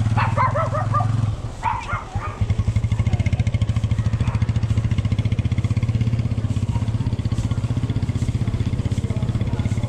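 An engine running steadily at an even speed with a fast, regular pulsing beat.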